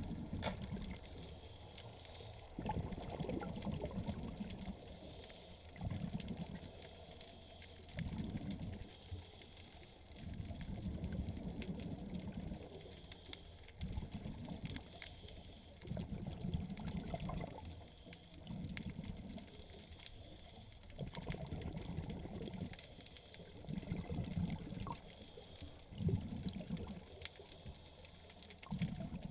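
A diver's breathing heard underwater: a gurgling rush of exhaled bubbles that comes and goes about every two to three seconds, with quieter water hiss in between.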